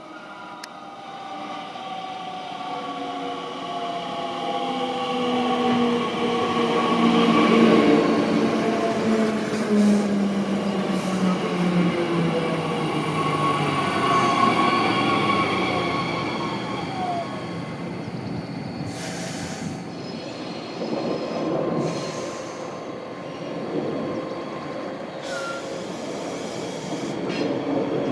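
Bombardier Talent 2 electric multiple unit (DB class 442) running into the platform and braking. Its traction electrics whine in several tones that fall steadily in pitch as it slows over about fifteen seconds, loudest as it comes alongside. A few short hisses follow as it stands.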